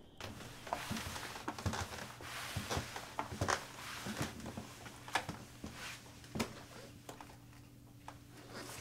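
Footsteps and small irregular knocks and clicks as a man carrying a broom moves along a hallway, densest in the first few seconds and thinning out after about six seconds, over a steady low hum.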